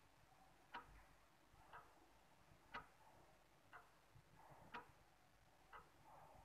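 Faint ticking of a clock, one tick a second, alternating stronger and weaker ticks.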